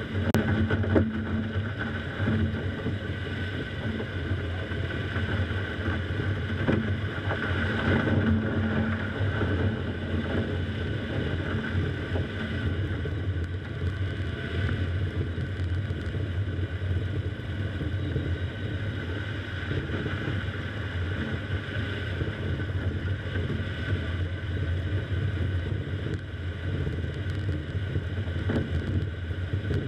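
Car driving slowly on an ice-covered street: steady engine and tyre noise, with a sharp knock about a second in and a few fainter knocks later.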